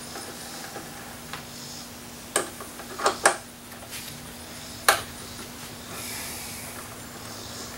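Quarter-inch drive ratchet and 10 mm socket clinking sharply against metal four times, a pair close together in the middle, while the bolts holding an outboard motor's oil tank are undone. A faint steady hum runs underneath.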